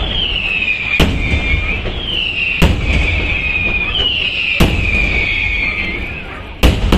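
Fireworks display: four sharp bangs about every two seconds, the last the loudest. Between the bangs comes a repeated high whistle that falls slightly in pitch, over a steady crackle and hiss of ground fountains.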